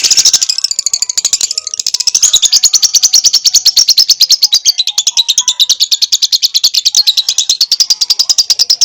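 Lovebird singing a long, unbroken chattering trill of rapid high notes, about ten a second.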